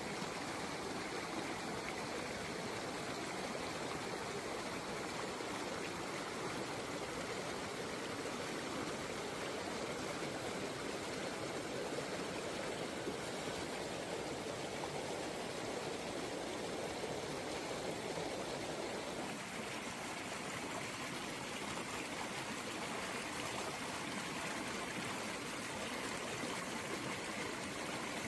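Rocky forest stream rushing and splashing over boulders in small cascades, a steady rush of water.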